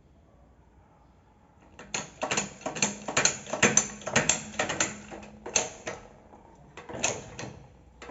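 Irregular metallic clicking and clanking of a bench vise being worked to press a suspension-arm rubber bushing through, using a socket as the driver. It starts about two seconds in and runs in quick irregular strokes. The bushing is going through stiffly.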